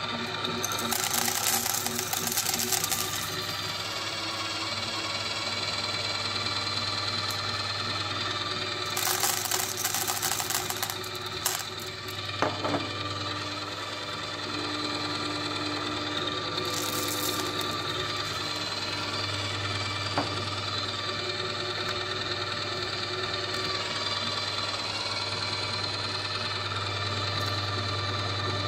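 Electric grinder motor running steadily with a constant hum, grinding chocolate and M&M candy. Three short spells of harsher, hissing grinding noise come and go over it.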